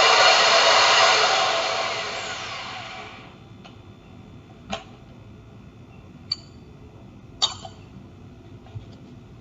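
Power drill spinning a metal hand coffee grinder as it grinds beans, then let off and winding down with falling pitch about three seconds in. A few sharp clicks and knocks follow.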